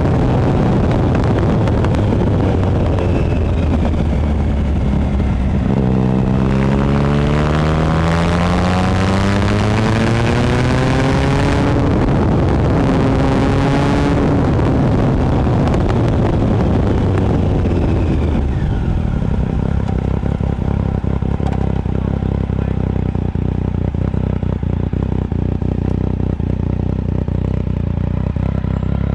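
Triumph Speed Triple 1050 inline-three engine through a Competition Werks slip-on exhaust: the pitch drops off the throttle, then climbs steadily under acceleration for several seconds, eases off, and settles to a low steady run near idle for the last ten seconds, with wind noise in between.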